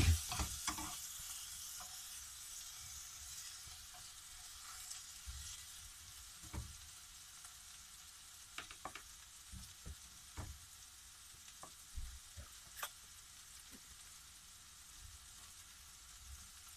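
Sliced portobello mushrooms sizzling in a frying pan on a gas hob, turned now and then with metal tongs that click against the pan. The sizzle is loudest at the start and settles to a soft hiss.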